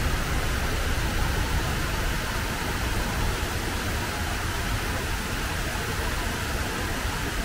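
Steady rushing of water pouring down the walls of the 9/11 Memorial's square reflecting pool, an even, unbroken noise.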